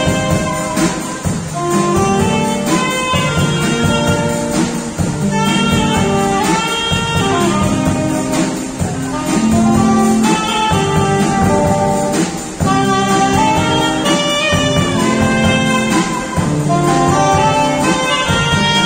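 Saxophone playing a lilting song melody in long, gliding phrases, backed by electric guitar and a drum kit.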